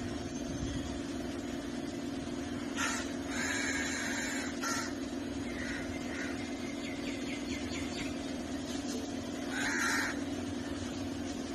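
Crows cawing several times, harsh calls about 3, 4, 6 and 10 seconds in, over a steady low hum.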